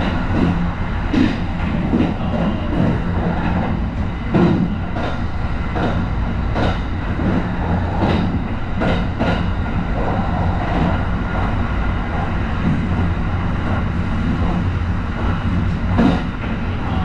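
Kintetsu 23000 series Ise-Shima Liner limited express running at speed, heard from inside the train. A steady rumble is broken by irregular sharp clacks as the wheels pass over rail joints and points, most of them in the first half and one more near the end.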